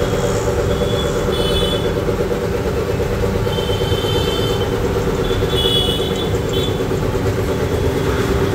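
A belt-driven 5 HP twin-piston air compressor, turned by a 3 HP single-phase Crompton motor, running steadily on a test run, a loud even hum with a fast, regular pulse from the pistons pumping up the tank.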